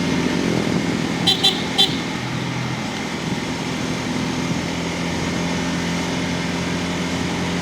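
Bajaj Pulsar N250's single-cylinder engine running steadily at cruise, with wind and road noise. Three short, high-pitched beeps come in quick succession about a second and a half in.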